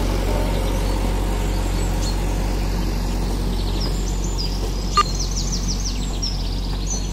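Diesel engine of a JCB backhoe loader running steadily, with birds chirping high above it and a single sharp click about five seconds in.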